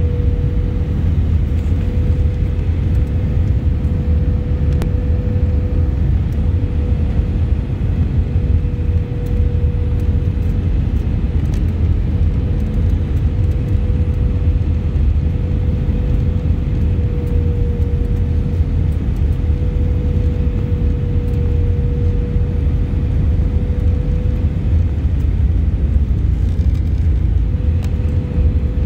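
Airbus A319 cabin noise on final approach with flaps extended: a steady low rumble of engines and airflow, with a steady mid-pitched tone held over it.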